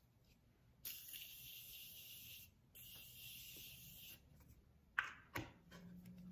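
Makeup setting spray misted onto the face: two long hissing sprays, each about a second and a half, with a short break between, then a couple of small clicks.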